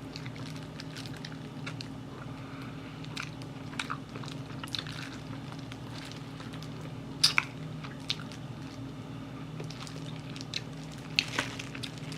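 Close-up chewing and biting into crispy Korean fried chicken, with scattered crunches of the fried coating. The sharpest crunch comes about seven seconds in. A low steady hum runs underneath.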